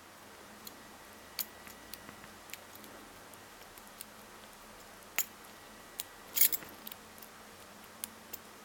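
Sparse, sharp metallic clicks and ticks of a homemade hacksaw-blade lock pick working the pin stack of a cheap padlock under a tension wrench, about one click a second with a quick flurry of clicks about six and a half seconds in.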